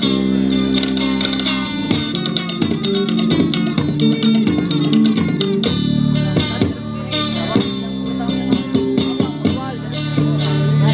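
Live ensemble music: a plucked string instrument playing quick runs of notes over a steady low drone.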